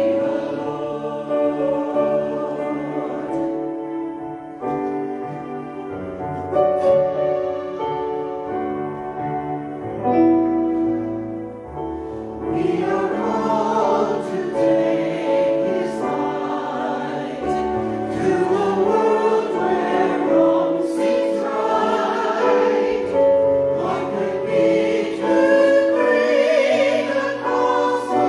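A choir singing a hymn with instrumental accompaniment, the sound fuller and brighter in the second half.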